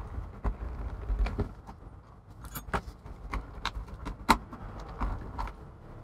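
The plastic casing of an aftermarket MacBook MagSafe charger being turned and worked in the hands: a string of sharp plastic clicks and taps over low rubbing, the loudest click about four seconds in. The shell is being flexed to find how it is held shut, which seems to be glue.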